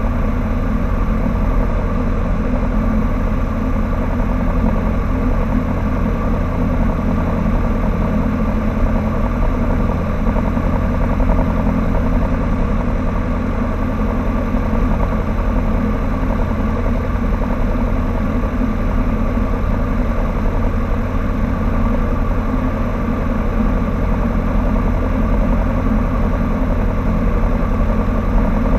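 Cessna 152's four-cylinder Lycoming O-235 engine and propeller running steadily at low power, heard inside the cabin.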